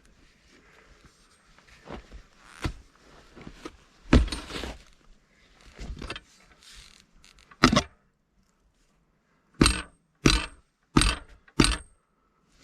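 Metal clanks, clinks and scrapes of tools and a threaded hydrant fitting being worked by hand, the threads refusing to turn. Near the end come four sharp, ringing metal strikes about two-thirds of a second apart.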